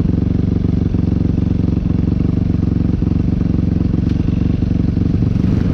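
Honda 4x4 ATV engine running hard at steady revs, under load as the quad churns through an icy mud hole. The engine note holds at one pitch throughout.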